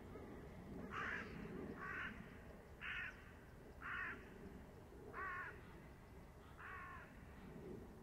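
A crow cawing six times, about a second apart, over a faint low background murmur.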